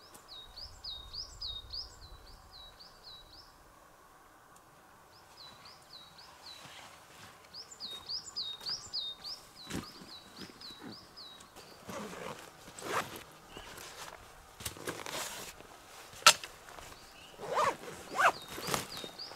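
A small bird repeats a short high note several times a second in phrases. From about halfway through come crunching and cracking sounds of footsteps and handled twigs on the forest floor, with one sharp crack standing out near the end.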